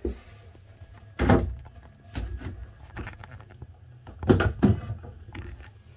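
Several dull knocks and bumps against wooden cabin joinery, with handling rustle between them. The loudest come about a second in and as a pair around four and a half seconds in.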